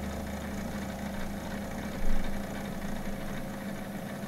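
A small machine's electric motor running with a steady hum. There is one short loud knock about two seconds in, and the lowest part of the hum drops away near the end.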